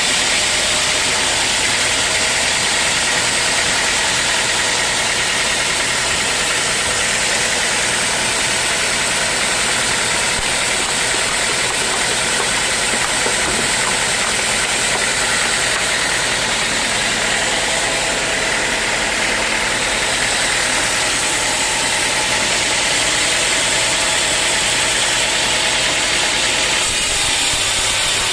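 Sawmill machinery running steadily: an engine drone under a loud, even hiss that does not let up.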